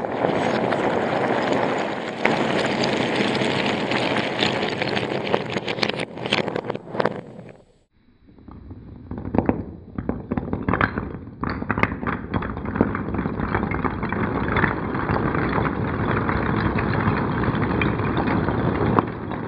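Hundreds of wooden one-notch Lincoln Logs toppling and clattering onto a table as a log pyramid collapses: a dense, continuous wooden rattle. It stops abruptly about eight seconds in, then starts again with a few separate clacks that build back into steady clatter.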